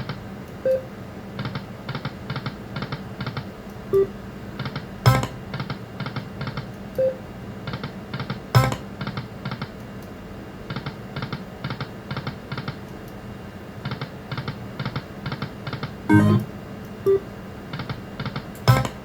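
Lightning Link video slot machine spinning: its electronic reel-spin sound, rapid ticks about four a second, repeats in runs as game after game plays, with a louder knock every few seconds and a few short tones.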